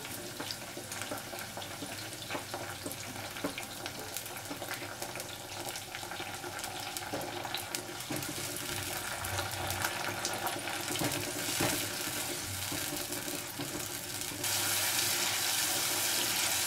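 Chopped tomatoes and small onions sizzling and crackling in hot oil in a clay pot, stirred with a wooden spatula. The sizzle gets louder near the end.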